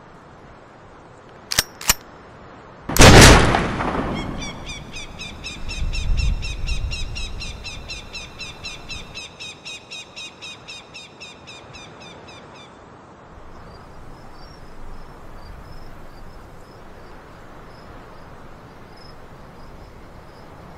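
Two sharp clicks, then a single loud gunshot from a long gun, followed by a low rumble. A bird then chirps rapidly and evenly, about three or four calls a second, for about eight seconds, with fainter high chirps after it.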